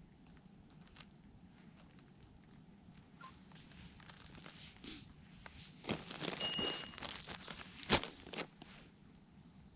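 Crunching and scattered clicks from a person moving close to the microphone on a pebble shore, growing into a louder cluster of crunches about six seconds in with one sharp click near eight seconds. A short faint high beep sounds briefly in the middle of the cluster.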